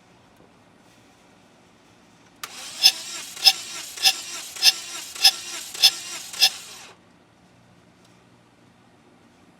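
Scion four-cylinder engine cranking on the starter with a spark plug removed: cylinder 2's compression blows out of the open plug hole in seven sharp puffs of air, about 0.6 s apart, over a steady rushing noise. It starts about two and a half seconds in and cuts off about four and a half seconds later. Cylinder 2 holds good compression (about 125 psi), while cylinders 3 and 4 are under 50 psi, the sign of a shot engine.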